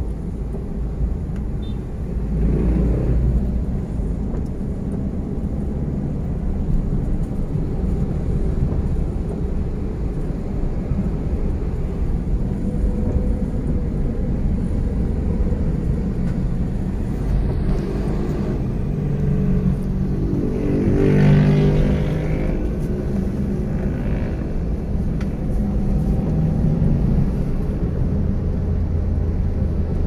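Car interior noise while driving on a wet road: a steady low rumble of engine and tyres. About twenty seconds in, a louder engine sound swells and fades.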